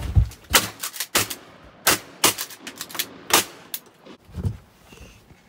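A rapid run of shotgun shots from several hunters in a duck blind, about half a dozen sharp blasts over four seconds, fired at passing waterfowl.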